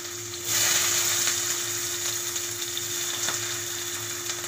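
Sliced onions hitting hot oil in a stainless steel pan: a sudden loud sizzle about half a second in that settles into steady frying.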